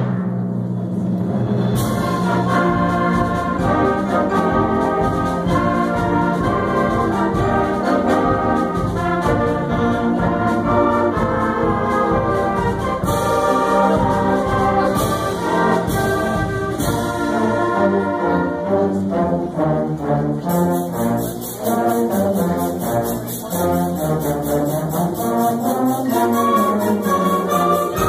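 A live band led by brass, with trombones and trumpets, playing a busy multi-part tune that starts suddenly and carries on without a break.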